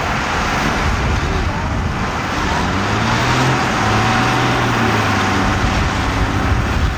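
Engine of the Sprinter II pulling tractor running hard under load during a pull, a loud, dense noise whose low note rises about three seconds in and then holds.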